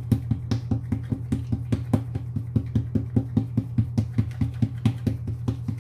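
Background music: a steady low drone with a quick, even beat of about five pulses a second.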